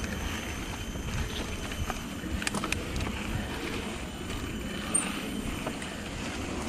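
Santa Cruz Nomad mountain bike rolling downhill on a dirt trail: a steady rumble of tyres on the ground with rattles and clicks from the bike, and a few sharp knocks about two and a half seconds in and again near the five-second mark.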